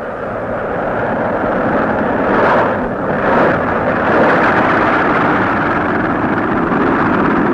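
Aircraft engines running loud and steady, with two brief swells about two and a half and three and a half seconds in.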